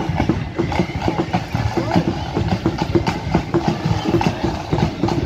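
Marching band drums beating at about two strokes a second, under the chatter of a roadside crowd.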